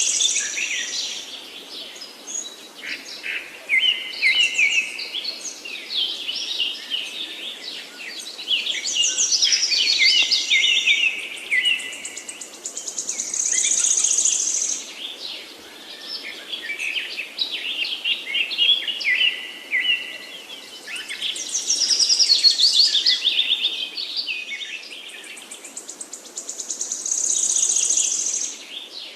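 Several songbirds singing over one another in short repeated phrases, with runs of notes falling in pitch and a high buzzy trill that comes back every dozen seconds or so, over a soft steady hiss.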